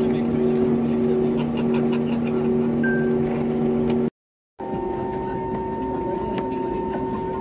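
Airliner cabin noise: the jet engines' steady hum with two low tones, heard from inside the cabin as the plane moves on the ground. About four seconds in the sound drops out for half a second, then comes back as a steady hum with a higher whine added.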